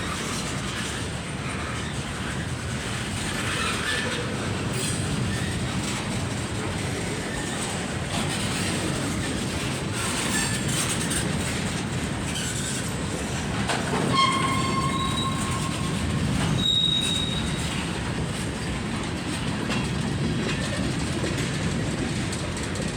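Freight cars rolling steadily past at close range: a continuous rumble and clatter of wheels over the rail joints, with a couple of brief high-pitched wheel squeals about two-thirds of the way through.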